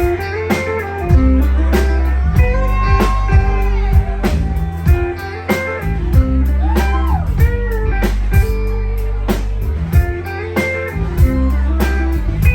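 Live band playing a blues-rock instrumental intro: a lead electric guitar line with bent notes over bass and a steady drum beat.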